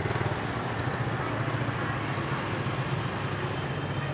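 Street traffic with a nearby engine running steadily, a low pulsing hum over constant street noise.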